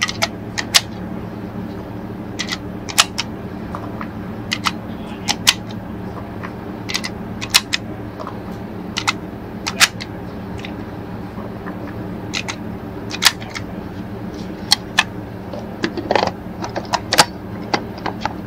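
Rifle cartridges being pressed one at a time into a rifle magazine, each round clicking as it snaps under the feed lips, with irregular sharp clicks about every second. Near the end the clicks come in a quicker cluster as the loaded magazine is handled at the rifle.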